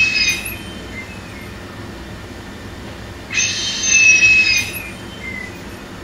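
ICU ventilator delivering breaths through a split two-limb breathing circuit: gas hisses through the tubing and valves with a high whistling tone on each breath. One breath is fading about half a second in, and the next comes about three seconds in and lasts about a second and a half.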